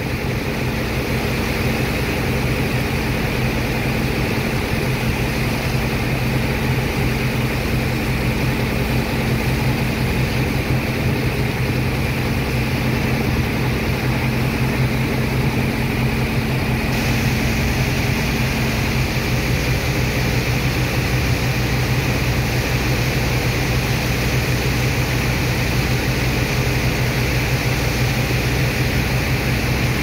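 Engine of a sand-unloading dredge pump running steadily with a constant low hum, under the even hiss of a high-pressure water jet from a hose spraying into sand.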